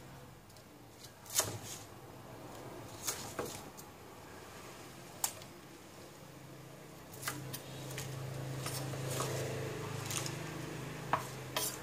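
Kitchen knife chopping spring onions on a wooden chopping board: sharp chops at irregular spacing, about ten in all, over a steady low hum. In the last few seconds the cut onions are gathered by hand onto a plate, with a soft rustling.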